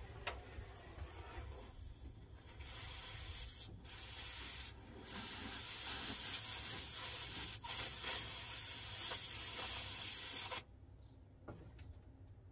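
Cutting torch hissing in several bursts as it cuts through rusted car body steel, the longest lasting about five seconds before it stops abruptly.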